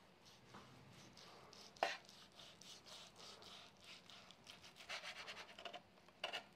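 Knife sawing back and forth through a cooked hamburger patty on a cutting board: faint, repeated scraping strokes, with a sharper click about two seconds in and a few louder strokes near the end.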